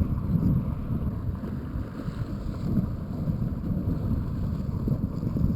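Wind buffeting the microphone outdoors by open water: a steady, uneven low rumble.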